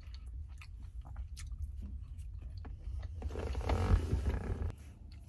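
A person chewing a mouthful of a lettuce-topped burrito bowl, with small wet clicks. About three seconds in there is a louder stretch of rustling and scraping as the fibre bowl and fork are handled.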